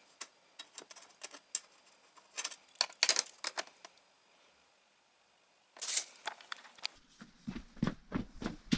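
Scattered light clicks and rustles from handling a steel tape measure and a metal wall-mounting bracket against the plastic-wrapped indoor unit, with a silent stretch of about two seconds in the middle and a few more knocks near the end.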